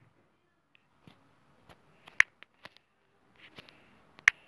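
Taps on a phone's touchscreen keyboard while a message is typed: a few short sharp clicks, the loudest about two seconds in and again near the end, with fainter ticks between.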